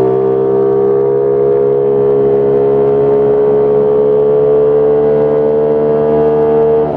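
Motorcycle engine running under steady throttle, its pitch climbing slowly as it gains speed, then falling suddenly right at the end.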